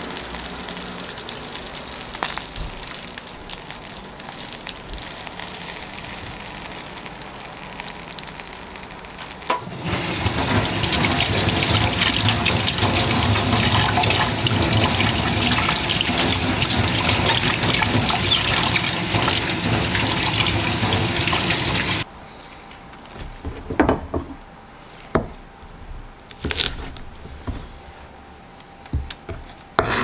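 Pork-belly and scallion skewers sizzling over charcoal on a small grill. About ten seconds in, a kitchen tap runs hard into a stainless steel sink while spring onions are rinsed under it, then it stops abruptly. Near the end come a few sharp knocks of a knife and onions on a wooden cutting board.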